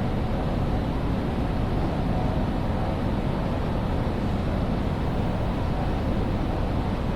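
Steady ambience of a large railway station hall: an even low rumble and hiss with no distinct events.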